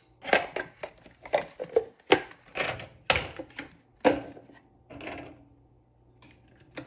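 Hard plastic parts of a vaporizer knocking and clicking as they are handled and fitted back together: about ten irregular sharp knocks, then a few quieter rattles.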